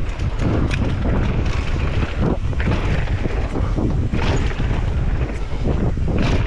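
Wind buffeting the microphone: a steady, rumbling rush with gusty swells and a few brief sharper rushes.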